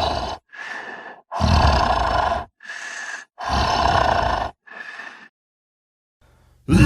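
Zombie growl sound effect: a monstrous voice growls in pairs, three loud growls each followed by a shorter, quieter one. After a pause of about a second a new loud growl starts at the very end.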